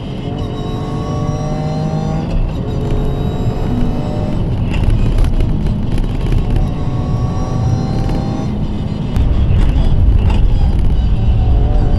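Toyota GR Yaris turbocharged three-cylinder engine pulling hard from inside the cabin, its pitch climbing and then dropping back at several quick upshifts of a 7-speed sequential gearbox. The sound gets suddenly louder about nine seconds in.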